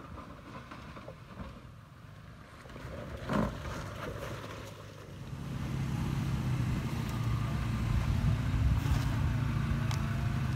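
Toyota 4Runner's 4.0-litre V6 running at low revs off-road, with a single sharp knock about three and a half seconds in. From about halfway the engine grows louder and steady as the lifted SUV crawls over a concrete ledge under load.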